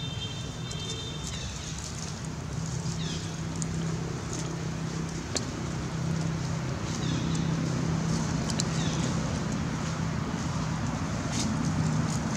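A steady low engine hum that grows a little louder after the first couple of seconds, with a few short, high, falling chirps over it.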